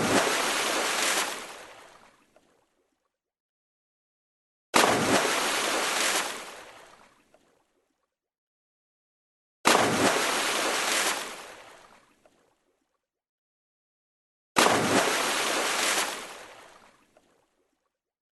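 A water splash sound effect played four times, about five seconds apart. Each starts sharply, holds for about a second, then fades away. There is dead silence between the splashes.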